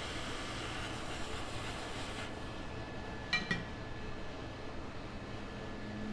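Steady fan-like hiss of bench equipment that thins out about two seconds in. A little past halfway come two quick, ringing metallic clinks of a small tool. A low steady hum sets in near the end.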